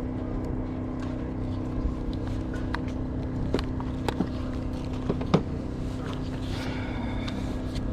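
An engine running steadily with a low, even hum, with a few sharp clicks and knocks about halfway through.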